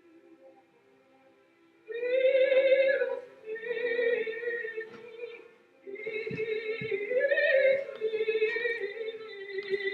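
High operatic-style singing: after a near-silent pause of about two seconds, long sustained notes with a wobbling pitch, sung in several phrases.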